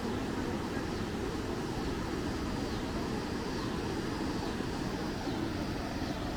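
Steady low roar of water pouring over a river dam, unchanging throughout, with faint high falling chirps repeating above it.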